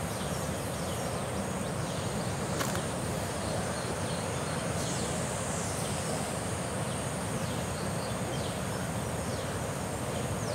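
Outdoor ambience: a steady high-pitched insect drone over a low background hum. A bird gives several short falling calls in the second half.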